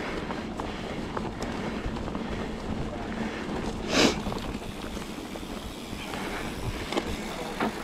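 Riding noise from a full-suspension mountain bike rolling down a dirt singletrack: steady wind rush on the camera microphone over tyre and drivetrain rattle, with a brief loud rush of noise about four seconds in and a couple of small ticks near the end.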